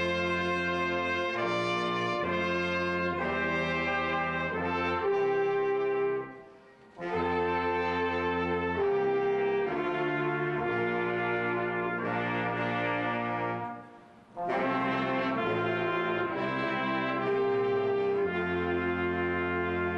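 A small band of sousaphone, saxophones, trumpet and trombone playing a slow tune in held chords, with the sousaphone on the low notes. The music falls into three phrases, with a short break about 6.5 and 14 seconds in.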